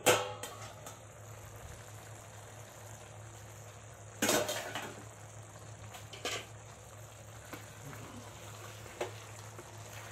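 Potato and fenugreek curry simmering under a glass lid on a low flame: a soft, steady sizzle with a few brief sharp pops. A clink at the very start is the glass lid settling onto the steel pot.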